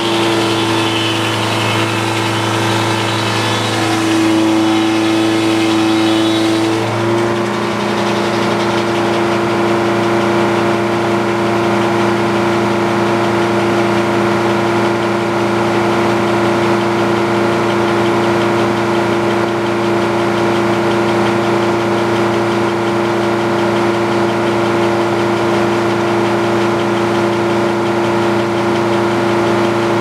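Frick sawmill running: its engine and belt-driven circular head saw spinning. For the first seven seconds or so the tone shifts and grows busier as the blade saws a slab off the log, then the mill settles into a steady run.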